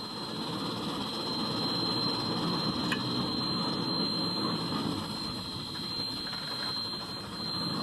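Machinery running steadily, an even engine-like rumble with a thin, steady high whine.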